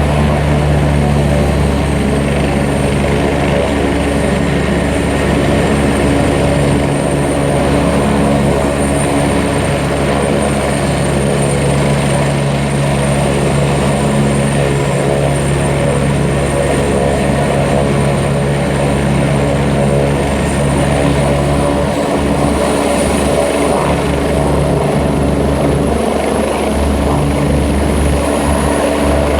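Rescue helicopter running steadily: the turbine engine's high whine over the steady drone of engine and rotor.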